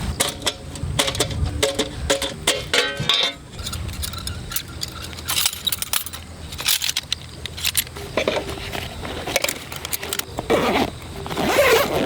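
Repeated clinks, knocks and jingling of small metal objects, with a louder swishing sound near the end.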